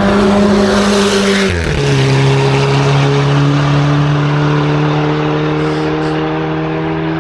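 Race car passing at high speed under full throttle. Its engine note drops sharply in pitch as it goes by about a second and a half in, then holds steady while slowly fading away.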